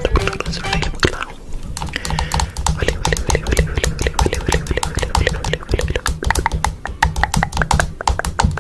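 Rapid, irregular clicking like keyboard typing over a low steady hum, part of a production-logo sound effect.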